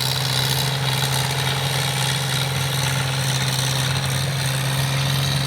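Kubota DC70 rice combine harvester's diesel engine running steadily under working load, a constant even drone.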